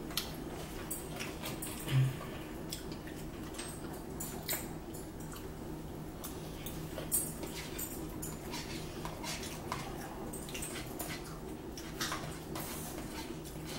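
Forks clicking and scraping on foam takeout trays and plates as two people eat, scattered small clicks over a steady low hum.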